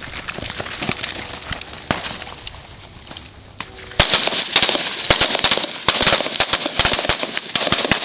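Gunfire from several shooters firing carbines at once. A few scattered shots come first, then from about halfway through a dense run of rapid, overlapping shots.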